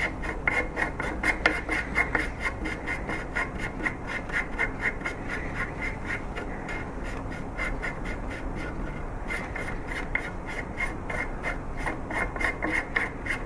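Steel AR-15 barrel nut being spun by hand on and off the upper receiver's threads to work anti-seize into them. The metal threads rasp and click in a quick, even run of about four scrapes a second.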